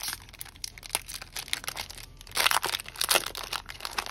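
Foil wrapper of a Yu-Gi-Oh Invasion of Chaos booster pack crinkling and tearing as it is ripped open by hand, with the loudest crackling about two and a half to three seconds in.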